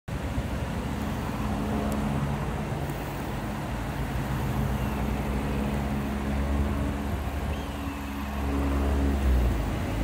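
Road traffic going by: a steady hum of engines and tyres, with one vehicle passing louder near the end.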